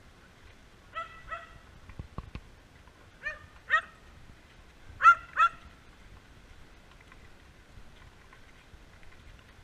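Dog barking: three pairs of short, high barks about two seconds apart, the loudest pair about five seconds in.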